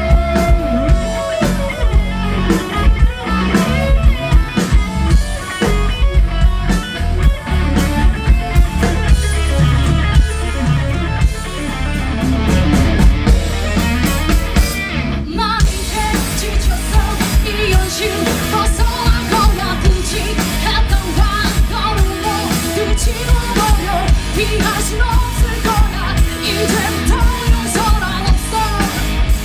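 Live rock band playing: electric guitar, bass guitar and drum kit, with a woman singing. The band cuts out for a split second about halfway through, then comes back in under the vocal.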